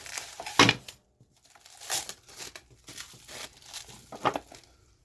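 Packaging crinkling and rustling in short bursts as parts are unwrapped and handled, with a sharper knock about half a second in.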